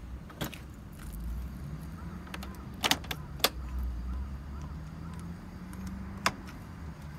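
Honda Giorno AF24's 50 cc two-stroke single idling with a low, slightly wavering hum, with a few sharp clicks over it.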